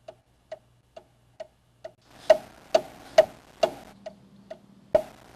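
Clock-like ticking of a countdown to a self-destruct, about two sharp ticks a second. The ticks grow louder with a hiss behind them about two seconds in, and a heavier knock comes near the end.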